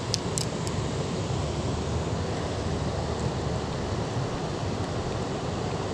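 Steady rushing noise of flowing river water, mixed with wind on the microphone.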